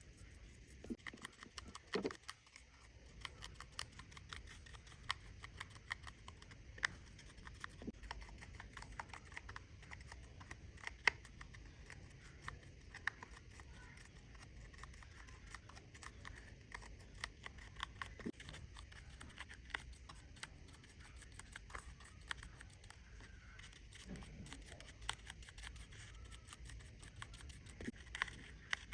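Small metal tools and watch parts clicking and tapping irregularly on a work surface during a watch restoration, over a steady low hum.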